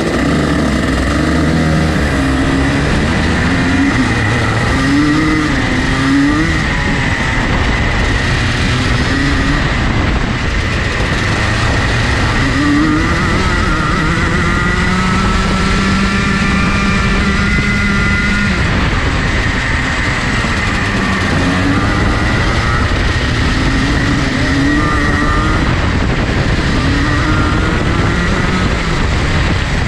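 Rotax Max Junior 125cc two-stroke kart engine running hard at speed, its pitch repeatedly climbing and dropping as the throttle is opened and closed, with a steady stretch at high revs in the middle that drops off near the halfway point.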